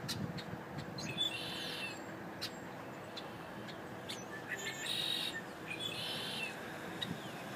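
Small birds chirping in three short runs of quick, high notes, with a few single high chirps between, over a steady background hiss and a faint hum.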